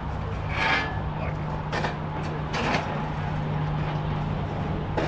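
A steady low hum with short knocks or scrapes: three in the first three seconds, then one more near the end.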